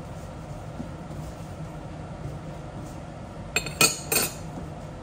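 A metal kitchen utensil clinking sharply against a cooking pot three times, over a steady low rumble.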